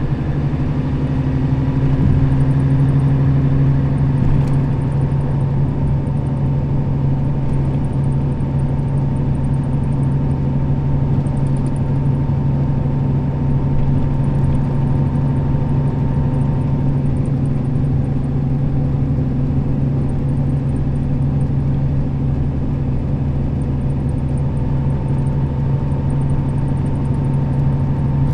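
Nissan Diesel KL-RA552RBN bus's diesel engine running at a steady, even pitch as the bus drives along, a continuous low drone with road noise.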